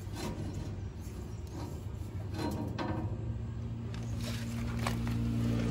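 Low, steady engine hum, with a few light knocks as a steel guard pipe is handled and fitted under a truck.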